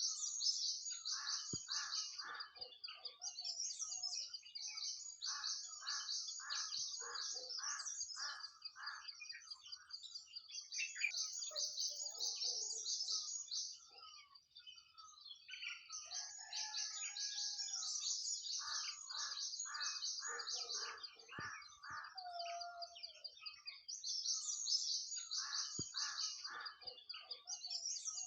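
Songbird singing: fast high-pitched trilled phrases over a lower run of repeated notes at about two a second, with a short lull about halfway through.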